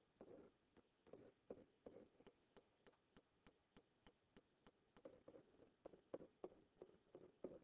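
Faint, irregular taps and short scratches of a stylus writing on a hard surface, a few strokes a second.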